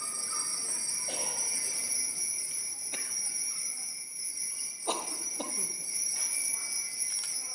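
Altar bells ringing in a continuous high jingle, rung during the elevation of the chalice at the consecration, with a few soft knocks.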